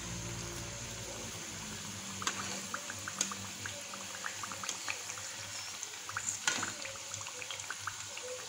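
Samosas deep-frying in hot oil: a steady bubbling sizzle with many small crackling pops, and a few sharper clicks.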